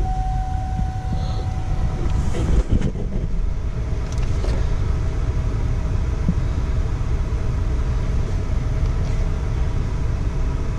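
A 2017 Buick Enclave's 3.6-litre V6 idling, heard from inside the cabin as a steady low rumble, with one brief knock about two and a half seconds in.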